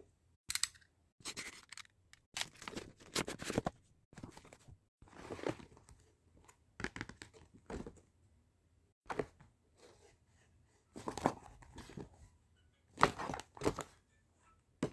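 Parcel packaging of plastic wrap and brown paper being torn open and crinkled by hand, in irregular rips and rustles with short pauses between them.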